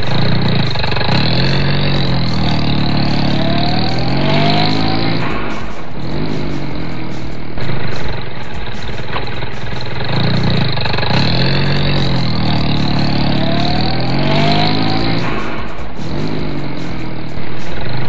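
Engine revving and settling, a sound effect looped so that the same few seconds of rising and falling revs repeat, starting over about halfway through.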